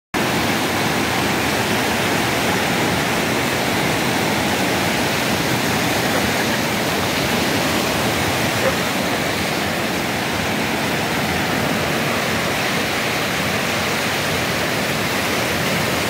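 Muddy, swollen Chenab River rushing through rapids past rocks: a steady, loud wash of turbulent water.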